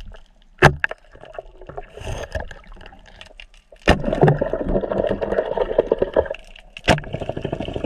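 Underwater audio of a band-powered speargun being fired: three sharp clacks about three seconds apart, with crackling, bubbling water noise around the camera between them.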